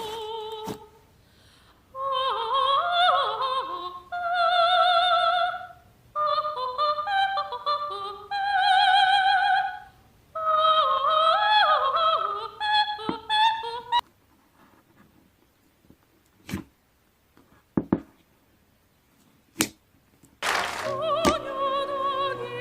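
High operatic soprano singing in short separate phrases with wide vibrato. It breaks off about 14 seconds in, leaving a quiet gap broken by three sharp clicks, then resumes near the end.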